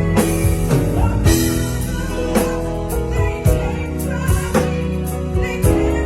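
Live band playing a gospel-tinged soul ballad, with sustained chords and drum hits and singing over them.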